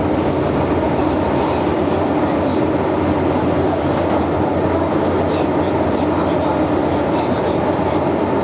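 Cabin noise of an MTR M-Train running through a tunnel: a steady, even rumble of wheels on rails.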